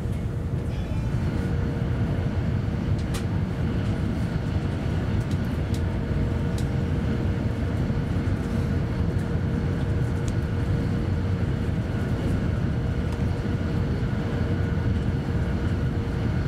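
Siemens Velaro high-speed train running at speed, heard from inside the passenger cabin: a steady low rumble of wheels and running gear. A faint steady whine joins about a second in.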